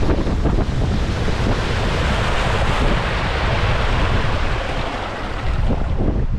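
Wind buffeting the microphone on a moving boat, with a steady rush of water. A broad hiss swells through the middle.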